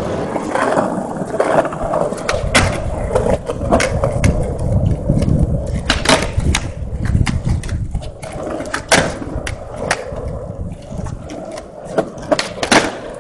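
Skateboard wheels rolling over pavement with a steady rumble, broken by several sharp clacks of the board's tail and deck hitting the ground.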